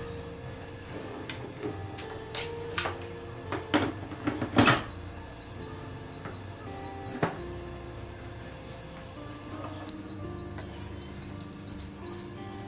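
Iris Ohyama electric pressure cooker: a few knocks as the inner pot goes in and the lid is shut, then a run of short high beeps from its control panel as the cooking menu is selected, four longer beeps followed by six quicker ones. Soft background music underneath.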